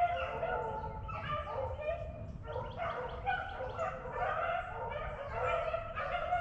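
A pack of beagles baying in chorus, many overlapping voices without a break, the sound of hounds running a rabbit's trail.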